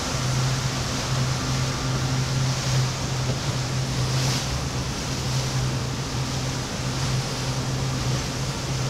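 Tour boat's engine running steadily at cruising speed, a constant low hum, under the rush of wind and splashing water as the boat moves through choppy water.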